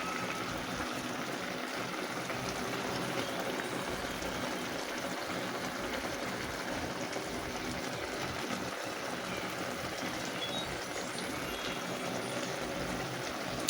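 Creamy milk-based fish sauce simmering in the pan, a steady bubbling hiss.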